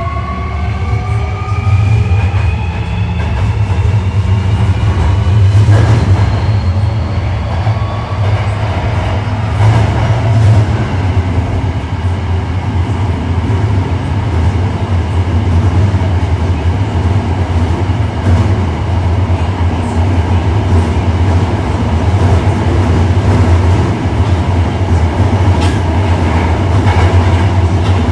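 Osaka Metro 1300-series train with a Toyo IGBT VVVF inverter: the traction motors' whine rises in pitch as the train accelerates over the first few seconds, then gives way to a steady running rumble of the car and wheels on the rails.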